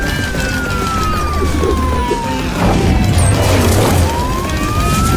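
Siren wailing slowly, falling in pitch for about three and a half seconds and then rising again, over background music.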